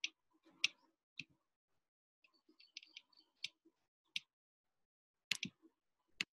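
Faint, sharp clicks from a computer being operated, spaced irregularly: about eight single clicks, two of them in quick succession a little past five seconds in, with a run of softer ticks around two to three seconds in.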